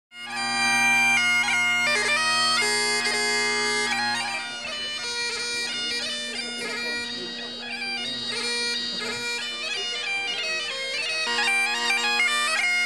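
Great Highland bagpipes playing a tune: quick-changing melody notes over steady drones. The sound starts abruptly, turns quieter and thinner about four seconds in, and grows fuller again near the end.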